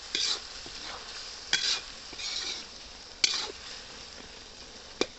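Chicken pieces sizzling in a black iron kadai while a metal spatula stirs them. The spatula scrapes and knocks against the pan about four times, every second and a half or so, over a steady frying hiss.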